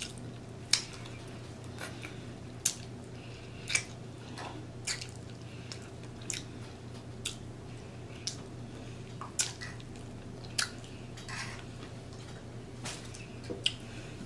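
Close-miked chewing of pork chop meat: wet mouth clicks and smacks, roughly one a second.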